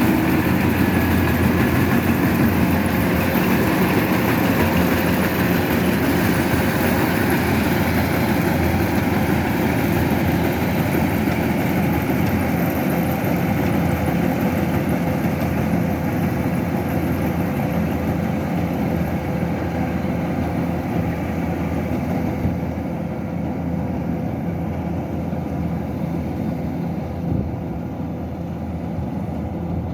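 Kubota DC-105X combine harvester's diesel engine running steadily, growing somewhat quieter and duller over the last third.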